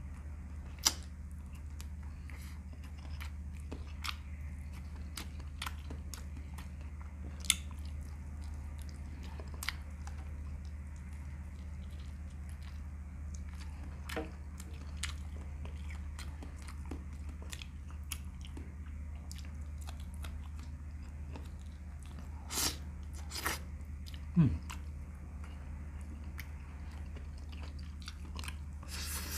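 Close-up chewing and mouth sounds of a person eating chicken and mutton with rice by hand, with scattered sharp clicks over a steady low hum.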